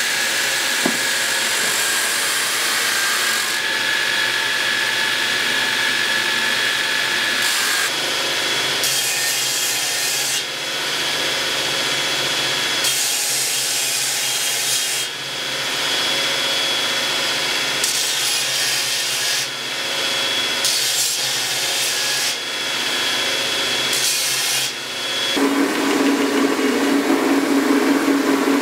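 Belt grinder running, with a steel sword blade pressed against the abrasive belt in repeated passes; each pass is a spell of loud hissing grinding over the machine's steady whine. Near the end the sound changes suddenly to a lower machine hum.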